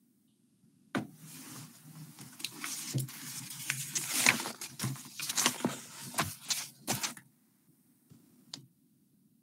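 Close rustling and crinkling with many sharp crackles, starting about a second in and lasting about six seconds, then a short click near the end.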